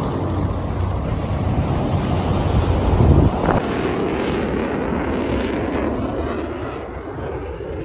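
Jet noise from Blue Angels F/A-18 Super Hornets flying past, loudest about three seconds in and then fading, with wind buffeting the microphone.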